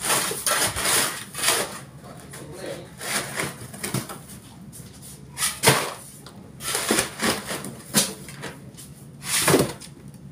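Crushed ice being scooped and dropped onto fish in a styrofoam box: crunching and scraping in irregular bursts, about one every second or two.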